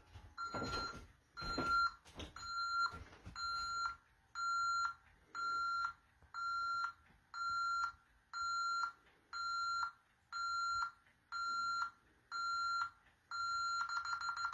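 Honeywell Vista 15P alarm keypad beeping steadily about once a second, counting down the entry delay after the front door is opened with the system armed away. Near the end it switches to a fast, continuous pulsing beep.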